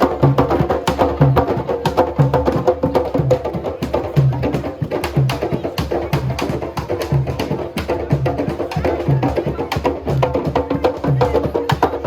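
Music with a steady beat: a low drum stroke a little under twice a second under busy, clicking hand percussion.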